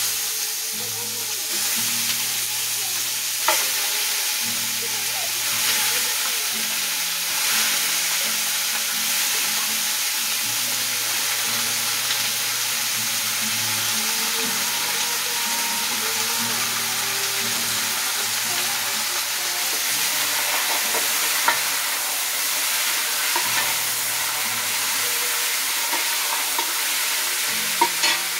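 Seasoned chicken pieces sizzling steadily in hot oil with browned garlic in a large aluminium pot as they are tipped in and fried. A few sharp knocks stand out, about three seconds in, past the middle and near the end.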